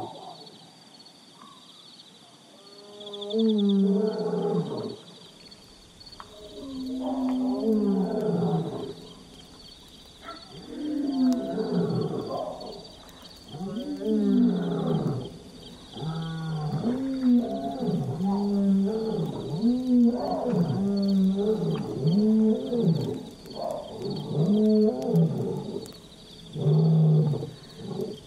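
A lion roaring: a few long roars that rise and fall in pitch, several seconds apart, then from about halfway a quicker run of shorter grunts, roughly one a second.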